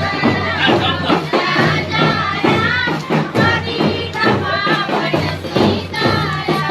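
Music with a singing voice over a steady, rhythmic beat.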